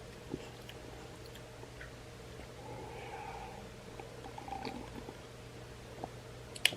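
Quiet indoor room tone with a steady electrical hum, faint mouth and handling noises from someone sipping tea, and one sharp click near the end.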